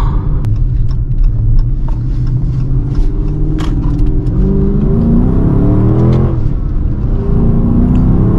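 Dodge Charger R/T's 5.7-litre Hemi V8, fitted with a new exhaust, heard from inside the cabin: a steady low rumble, then the engine note climbs under acceleration from about four seconds in, dips at a gear change around six seconds, and climbs again.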